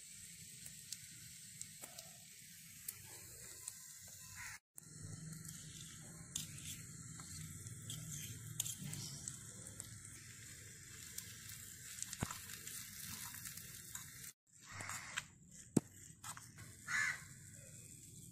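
Faint hum and hiss with a few light clicks and scrapes of a small spoon against a small steel bowl of mashed potato. The sound cuts out completely twice for a moment.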